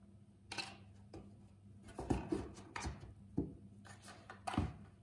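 A cardboard box being pawed and pushed about by a cat: irregular scrapes and knocks of cardboard, the loudest about two seconds in and near the end.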